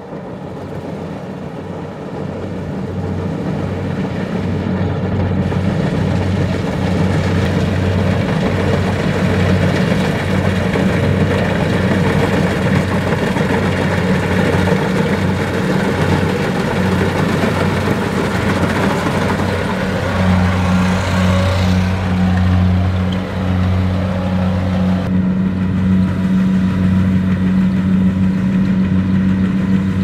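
Kubota DC-70 Plus rice combine harvester running as it cuts and threshes: a steady low diesel engine hum under a broad noise from the cutting and threshing machinery. It grows louder over the first several seconds as the machine comes closer.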